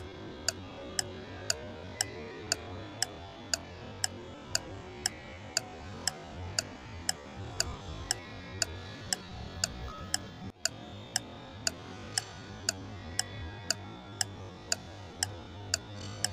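Steady clock-like ticking, about two sharp ticks a second, over faint background music. The sound briefly drops out about ten and a half seconds in.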